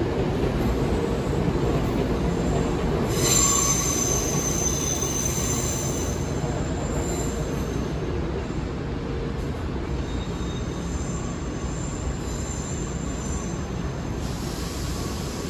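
Nankai electric train's wheels squealing on curved track and points as it slowly approaches, over the steady rumble of the train. The high squeal starts about three seconds in, fades, and comes back for a few seconds near the end.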